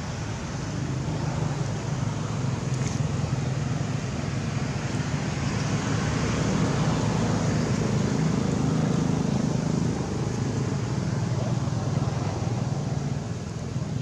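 Low, steady rumble of a motor vehicle engine, growing louder through the middle and then easing off.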